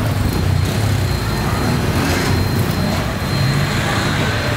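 Steady low rumble of street traffic, with a thin high-pitched whine running through it.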